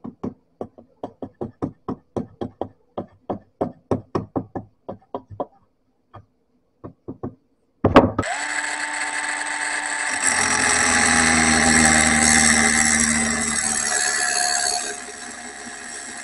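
A rapid series of knocks, about four a second, for roughly five seconds, then a few more spaced out. About eight seconds in a power tool switches on and runs steadily with a whine that sags slightly, growing quieter near the end.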